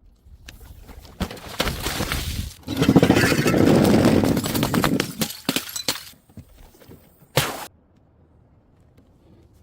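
Glass breaking and crunching: a run of sharp cracks builds into a loud, dense crash lasting a couple of seconds, followed by scattered clinks and one last sharp impact, then it goes quiet.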